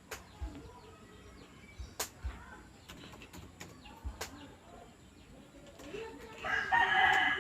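A rooster crowing loudly near the end, after a stretch of faint bird chirps broken by a few sharp clicks.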